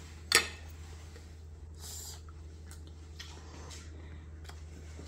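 A metal spoon clinks sharply once against a ceramic plate about half a second in, then softer eating noises over a steady low hum.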